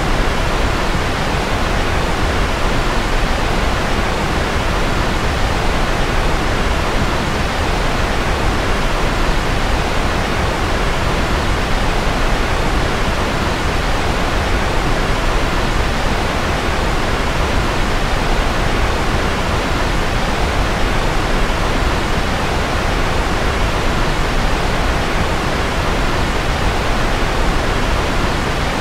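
Steady generated sleep-aid noise: an even, unbroken hiss that does not change, fuller in the low and middle pitches than in the highs, like pink noise.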